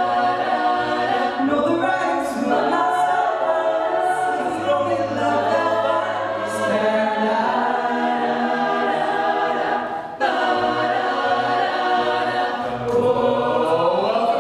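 Mixed-voice a cappella group singing, soloists on microphones over sustained backing vocals. There is a brief break about ten seconds in, and the voices sweep upward in pitch near the end.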